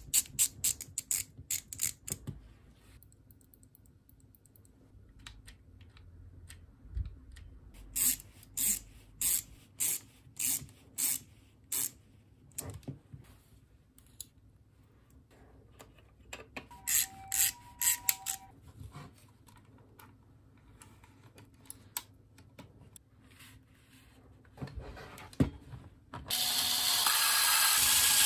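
Hand assembly of small plastic and metal parts: runs of sharp clicks, a run of about eight evenly spaced clicks in the middle, and a short two-note electronic beep. About two seconds before the end, a cordless electric screwdriver starts and runs steadily, driving a screw into a 3D-printed housing; this is the loudest sound.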